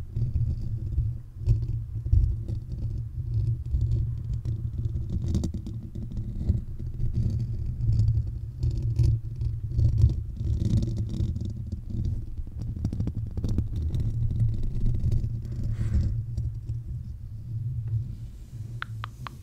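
Fingers scratching and rubbing directly on the metal mesh grille of a Blue Yeti USB microphone, heard as a dense, uneven low rumble with scattered scratchy clicks. It eases off near the end.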